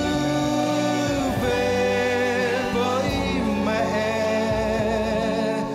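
A male voice singing a slow Vietnamese ballad in long held notes with vibrato, over instrumental accompaniment. The pitch changes about a second and a half in and again past the middle.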